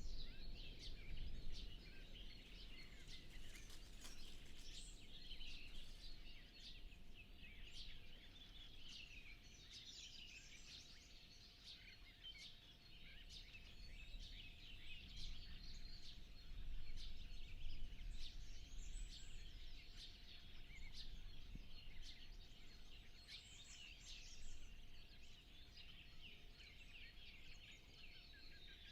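Dawn chorus of many songbirds singing at once, dense overlapping chirps and trills, with a faint steady hum beneath.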